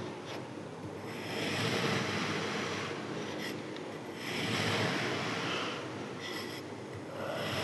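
Kinetic sand being sliced and pushed apart, a gritty, crumbly scraping that swells twice and fades, with a few faint clicks.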